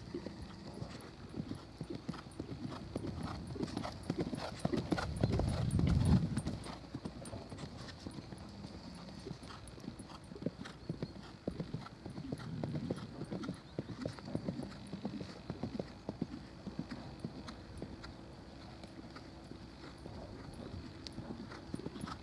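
Horse cantering on a sand arena: muffled hoofbeats in a steady repeating rhythm, louder about five to six seconds in.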